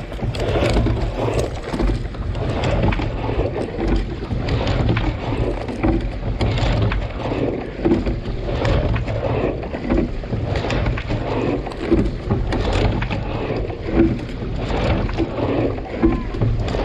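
Single racing scull under way, heard from on board: water rushing along the hull with a knock and splash about every two seconds as the sculls work through each stroke, over a steady rumble of wind on the microphone.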